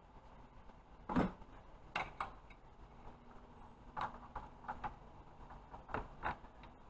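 Scattered clinks and knocks of hand tools on metal as a wrench holds the camshaft and a breaker bar works the cam phaser bolt loose, about eight irregular knocks in all, the loudest about a second in.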